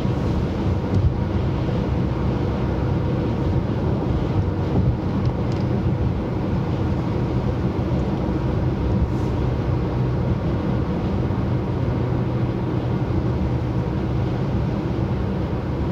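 Steady road noise of a car cruising at highway speed, heard from inside the cabin.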